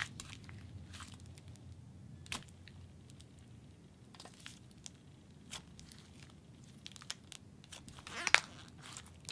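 Soft, smooth butter slime being pressed, folded and stretched by hand, giving scattered sticky clicks and small crackles, with a louder pop about two seconds in and another near the end.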